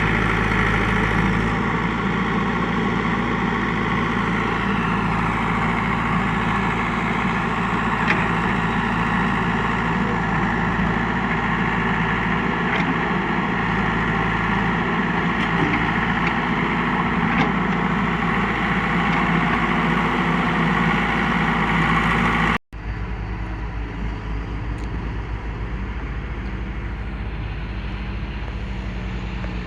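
Backhoe loader's diesel engine running steadily under work. It breaks off for an instant about three quarters of the way through, then carries on somewhat quieter with a different pitch pattern.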